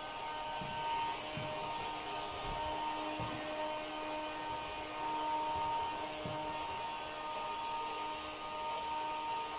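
Steady electric whine from the InMoov humanoid robot's hobby servo motors holding position, several high tones that fade and return now and then, with a few faint low knocks.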